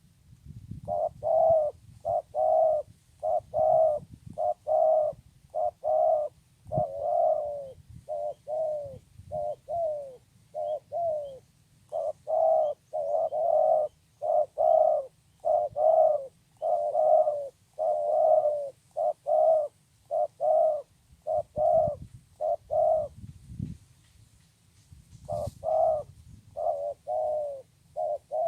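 Spotted dove cooing again and again in short repeated notes, with a pause of about two seconds near the end before the cooing resumes.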